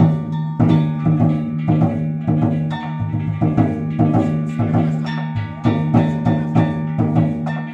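Music with a quick, steady run of percussive strikes over sustained pitched tones.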